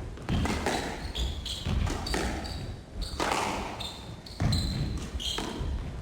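A squash rally: the ball is struck by rackets and hits the court walls about once a second, with short high squeaks from the players' shoes on the court floor.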